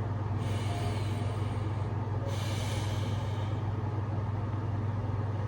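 Steady low hum of background noise, with two soft hissing sounds in the first half.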